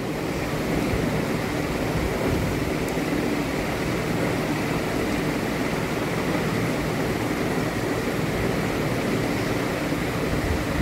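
Potatoes and aubergine in tomato masala sizzling steadily in oil in a pan, at the stage where the masala has released its oil and is frying down.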